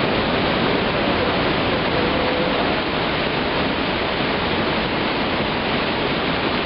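Athirappilly waterfall rushing: a loud, steady wash of falling water with no breaks.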